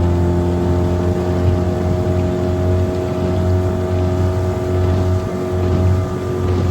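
Hidea 15 hp outboard motor running steadily at speed with the boat planing, on a 10-pitch three-blade propeller. The engine note holds an even pitch throughout.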